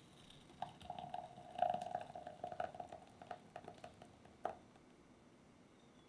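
Thick egg-yolk cake batter pouring through a stainless steel mesh sieve into a glass bowl: a steady ringing tone with small crackling pops while the stream runs. It stops with a sharp click about four and a half seconds in.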